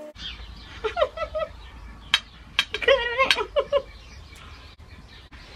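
Short pitched animal calls in two bursts, about a second in and again about three seconds in, with a few sharp clinks of metal cutlery on an enamel plate between them.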